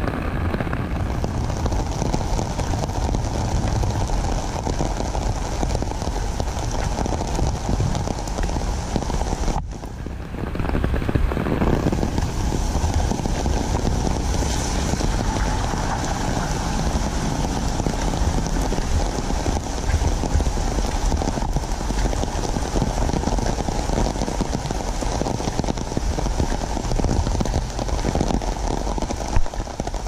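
Steady heavy rain pouring down on wet pavement, grass and an umbrella, briefly dipping about ten seconds in.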